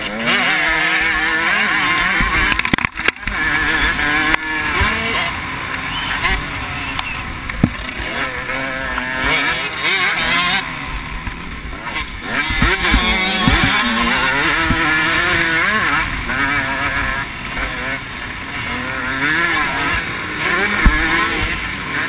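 KTM motocross bike engine revving hard and dropping off again and again as the rider accelerates, shifts and brakes through corners and straights, heard from a camera on the bike with wind and dirt noise. The engine drops away briefly about three seconds in, and a couple of sharp knocks come through, one near the end.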